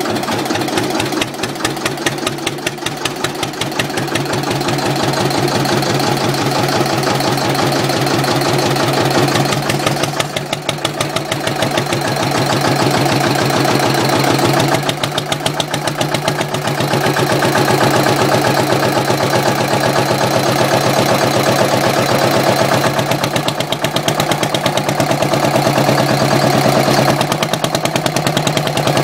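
Slavia 1S100K single-cylinder diesel engine of a generator set running steadily, its exhaust beating through a newly welded open exhaust pipe with a rapid, even rhythm. The beat dips briefly twice, then carries on unchanged.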